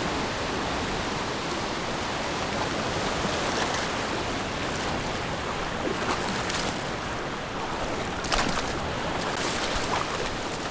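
Steady rush of shallow surf washing around the wader, with a few short splashes near the end from a hooked fish thrashing at the surface as it is reeled in.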